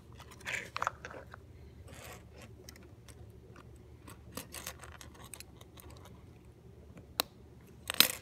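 Small plastic LEGO pieces clicking and rattling as they are handled and a gray clip plate is fitted onto a bar, with scattered light clicks, one sharp click about seven seconds in and a louder burst of clicking near the end as the piece snaps into place.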